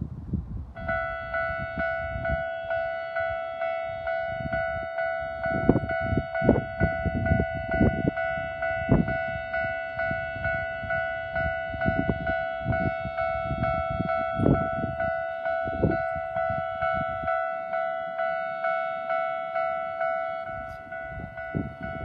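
Japanese railway level-crossing warning bell with an unusual tone, starting about a second in and ringing in even repeated strokes, about three every two seconds, as the crossing is activated for an approaching Enshū Railway train.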